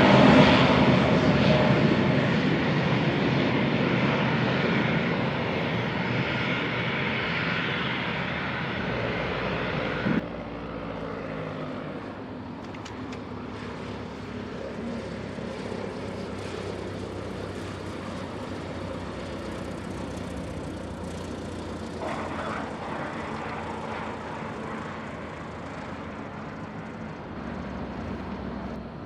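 Airplane engine, loud at first and fading steadily over about ten seconds, then an abrupt drop to a quieter, steady drone.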